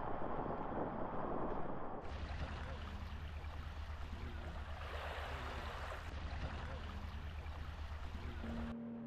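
Road and wind noise from a moving vehicle for about two seconds, then an abrupt change to a steady wash of hiss over a low hum, which cuts off near the end as a steady pitched tone comes in.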